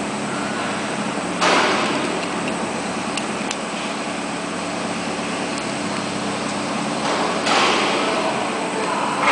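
Steady hum of running shop machinery, broken by a sudden loud burst of noise about a second and a half in and again about seven and a half seconds in, each fading out over about a second.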